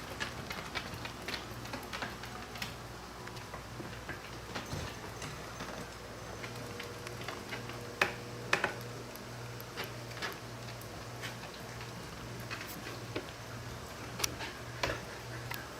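Cats playing together: light, scattered taps and clicks of paws and claws on the floor, with a few louder knocks about 8 and 14 seconds in, over a low pulsing hum.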